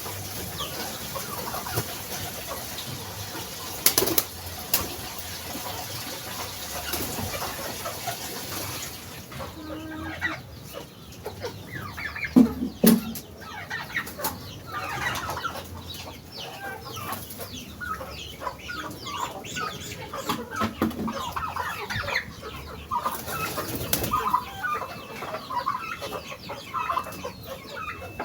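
Chickens clucking, with their short calls growing busier after the first few seconds. A couple of sharp knocks come about four seconds in.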